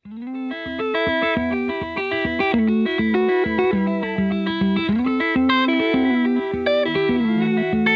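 Instrumental background music led by guitar, with a quick run of plucked melody notes over held bass notes. It starts abruptly at the beginning.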